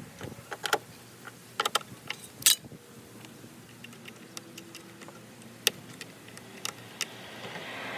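Irregular sharp clicks and knocks of hand tools and car trim parts being handled, with a short run of clicks about one and a half seconds in and the loudest clack about two and a half seconds in.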